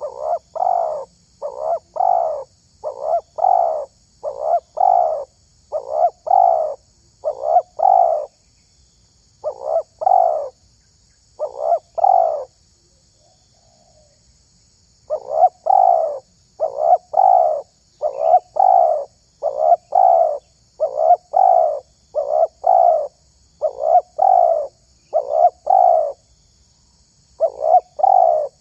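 Spotted dove (tekukur) cooing over and over in short notes grouped in twos and threes, with a break of a few seconds near the middle.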